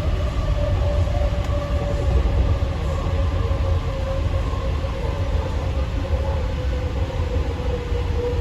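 Inside an AirTrain JFK car under way: a steady low rumble of the running train with an electric drive whine that sinks slowly in pitch.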